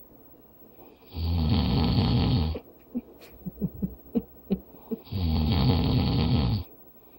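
A man snoring heavily while asleep: two long, loud, rough snores about four seconds apart, with a run of short soft pops between them.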